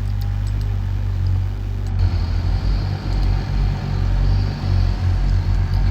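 Engine of compact earthmoving equipment running steadily with a strong low drone, with a brief dropout about two seconds in.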